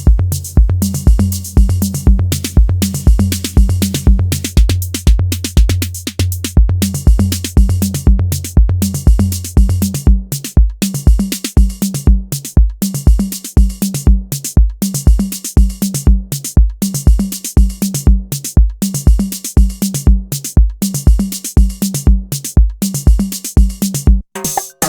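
Roland TR-8 drum machine playing a steady four-on-the-floor beat, kick drum about twice a second with hi-hats ticking above it. A sustained low bass tone sits under the kicks for about the first ten seconds, then drops out, and the pattern stops briefly near the end.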